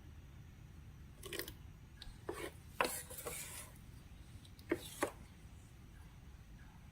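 A handful of short scrapes and rubbing noises from balloons and slime being handled, the loudest about three seconds in, followed by a brief hiss.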